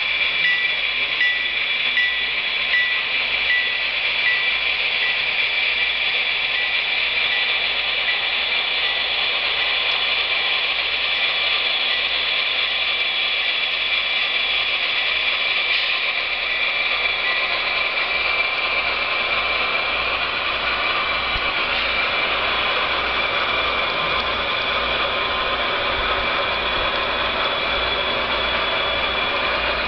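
HO scale model coal train rolling past on the layout track, led by three Union Pacific C60AC diesel models: a steady mechanical whir and clatter of wheels and gear drives that grows fuller about halfway through. A faint high beep repeats about twice a second during the first third.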